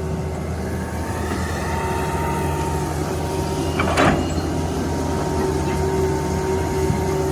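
Heavy vehicle engine running steadily, with a short sharp clank or hiss about four seconds in.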